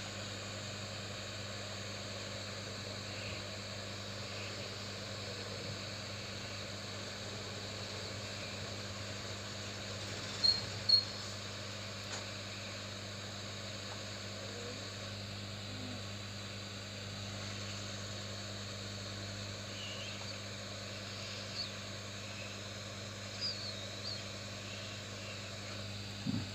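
Steady low electrical hum with faint hiss from a repair bench, broken by a few small sharp clicks of tools handling the meter's board, the two loudest close together about ten seconds in.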